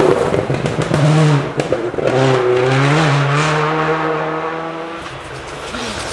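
Rally car engine at high revs passing and pulling away, its pitch dropping and climbing again with gear changes, fading gradually over the first five seconds.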